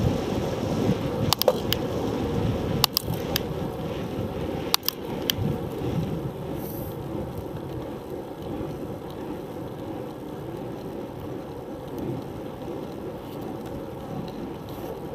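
Wind and road rumble on a camera mounted to a bicycle's handlebars while riding on asphalt. The rumble eases after about six seconds as the bike slows on a climb. Several sharp clicks come in the first five seconds.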